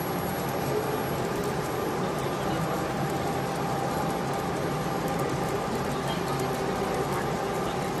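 A steady mechanical hum with faint steady tones under the murmur of a busy exhibition hall.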